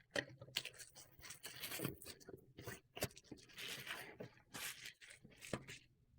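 A shipping package being torn open by hand: irregular tearing, crinkling and scraping of the packaging material, stopping just before the end.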